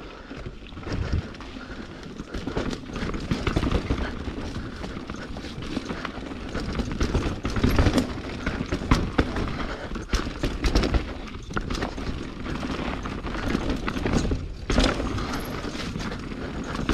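Mountain bike descending a rough natural dirt trail: continuous rumble and hiss of the ride, broken by frequent irregular knocks and rattles as the bike hits bumps and roots.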